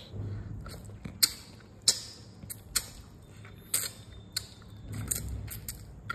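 Someone eating fish curry and rice by hand: an irregular run of short, sharp wet clicks and smacks, about a dozen over the few seconds, over a faint low hum.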